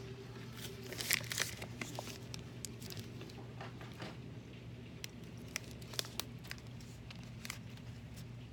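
Plastic wrapper of a granola bar crinkling and tearing as it is opened: scattered sharp crackles, loudest about a second in.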